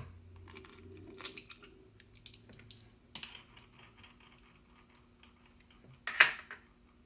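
Eggs being cracked and separated over a bowl: scattered small clicks and taps of eggshell, with a sharper crack about six seconds in.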